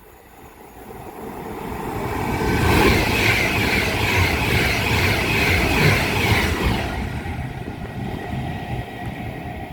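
Avanti West Coast Class 390 Pendolino electric train passing through the station without stopping. Its rushing noise builds over a couple of seconds, is loudest for about four seconds, then fades away.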